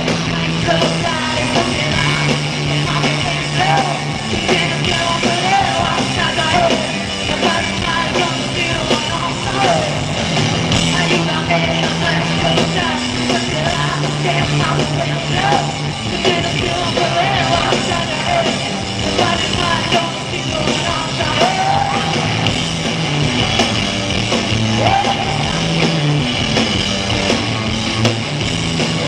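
Live rock band playing loudly with a singer: a sung melody over a steady bass line and full band, recorded on a small handheld video camera.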